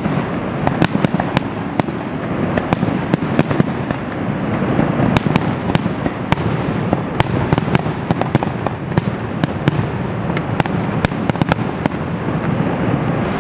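Fireworks display: a rapid string of sharp bangs and crackling reports, about two or three a second, over a steady rushing noise.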